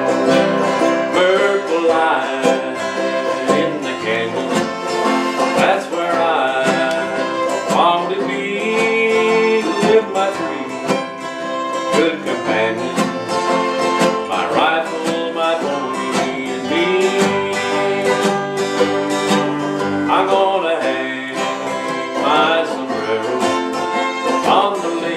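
Acoustic string band playing an instrumental break: a fiddle playing long sliding notes over acoustic guitars and a picked five-string banjo.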